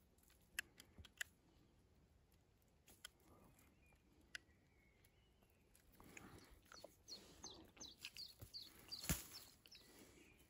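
Faint chirping of small birds, a quick run of short falling chirps in the second half, with a few sharp clicks near the start and a louder click about nine seconds in.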